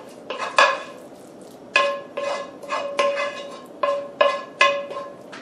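Wooden spoon knocking and scraping against a metal skillet to get the ground beef and bean mixture out, about ten knocks, each leaving the pan ringing briefly.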